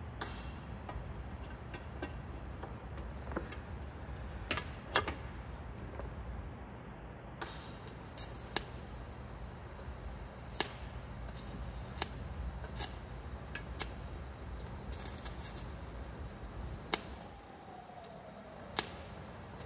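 TIG welder tacking steel bails onto a helmet shell: a steady low hum with about a dozen sharp clicks and snaps scattered through it, and a few short crackling bursts as tacks are laid. A brief falling tone comes near the end.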